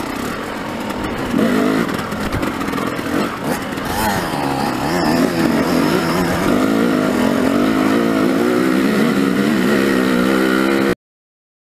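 Dirt bike engine running under load up a rocky trail, its pitch rising with the throttle several times in the first half, then holding steady. The sound cuts off suddenly near the end.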